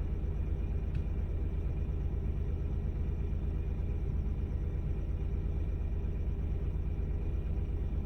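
Steady low rumble of a Honda N-ONE kei car being driven, heard from inside the cabin, with one faint click about a second in.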